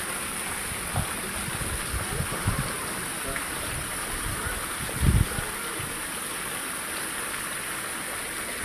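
Naga statues spraying water as a fine mist: a steady, even hiss, with a few low thumps, the loudest about five seconds in.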